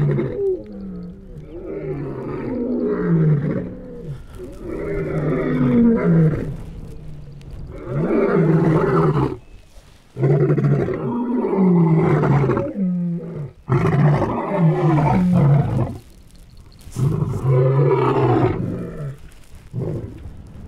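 Lions roaring: a long series of deep roars, one after another, with brief pauses between them.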